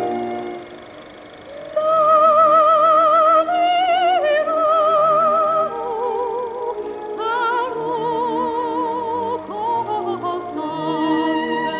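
Background music: operatic singing with wide vibrato over held accompanying notes. It is quieter for about the first second and a half.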